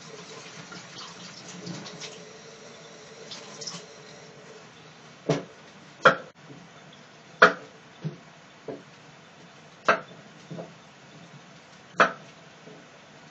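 Kitchen tap running while a knife's back edge scrapes cucumber skin, the water stopping about four seconds in. After that come about eight sharp knocks of cucumbers and a knife on a wooden cutting board.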